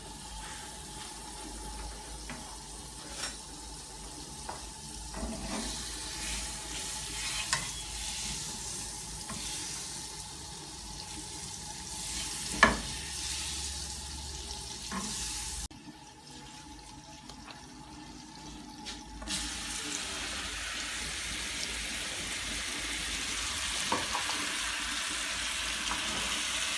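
Mushrooms frying in butter in a pan, with a utensil knocking and scraping against it now and then. The sizzle dips for a few seconds past the middle, then grows louder and steadier through the last several seconds.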